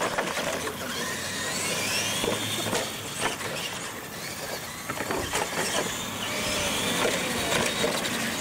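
Radio-controlled monster trucks racing on concrete: the motors and gears whine, rising and falling as the trucks speed up and slow down, over a steady rush of tyre and drivetrain noise. Scattered sharp knocks come from the trucks bouncing over the ramps and car-pile obstacles.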